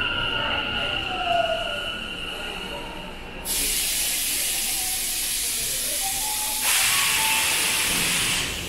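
Tokyo Metro 10000 series train braking to a stop: the traction motor whine falls in pitch and fades. About three and a half seconds in, a sudden loud hiss of compressed air starts as the train comes to a stand, and a second, louder hiss joins about three seconds later.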